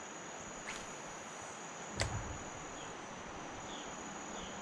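Steady high-pitched insect drone over a soft, even hiss of moving river water. A click comes under a second in and a sharper knock about two seconds in. From about halfway, short chirps repeat roughly every two-thirds of a second.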